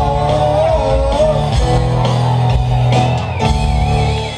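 Live rock music from pianos and drums, with a man singing into a microphone. A high wavering note comes in about three seconds in.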